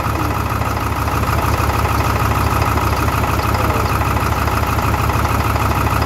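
2002 Ford Power Stroke 7.3 V8 turbo-diesel idling with a steady low pulse, misfiring on one bank. A failing number 8 injector has made the injector driver module shut down the whole bank that injector sits on.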